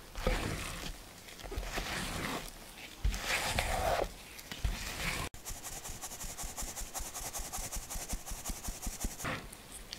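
A spatula scraping and folding meringue against the sides of a mixing bowl, in uneven strokes. About halfway through, a fine-mesh sieve is shaken over the bowl, a fast, even rasping hiss as almond powder, powdered sugar and cocoa sift through.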